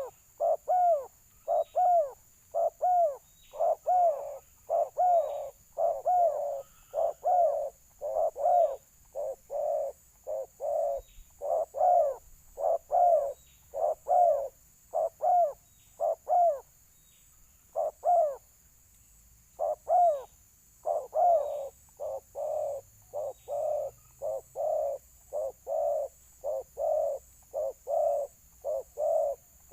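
Spotted doves (balam) giving their repeated fighting coos, short arched notes about one to two a second, with louder and softer notes in turn as a bird answers the decoy. The calling breaks off briefly about halfway through, then resumes.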